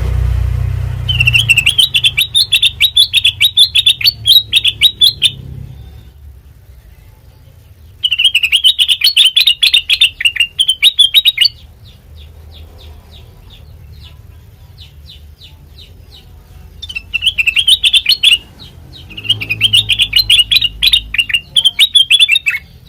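A kutilang mas songbird singing in four bursts of rapid, chattering, high-pitched notes, each a few seconds long, with softer quick notes between the bursts. A low hum runs underneath.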